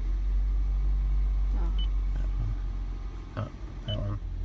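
Steady low rumble inside a car's cabin, with two short high beeps from the dashboard navigation touchscreen as it is pressed, about two seconds in and again near the end.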